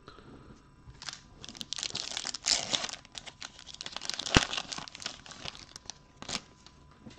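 A trading card pack's foil wrapper (2019-20 NBA Hoops Premium Stock) being torn open and crinkled, with a sharp click about halfway through.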